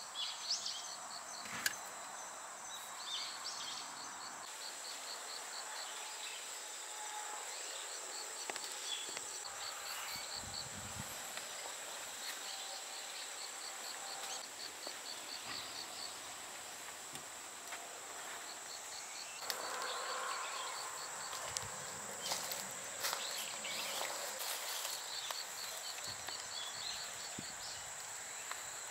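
Insects calling: a steady high-pitched buzz throughout, with runs of fast chirps that start and stop again and again. A few light knocks and a brief rustle come about two-thirds of the way through.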